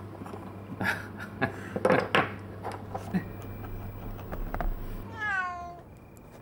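Several sharp knocks of wooden chess pieces on a board, the loudest about two seconds in, then a cat meowing once near the end: a call of about a second, falling in pitch.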